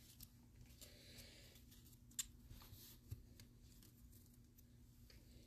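Near silence: faint room tone with a low steady hum and a few faint clicks.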